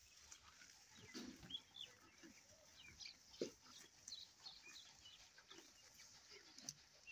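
Faint, scattered chirps of birds, with soft rustling and crunching as cattle tear at and chew green grass; one crunch about three and a half seconds in stands out as the loudest.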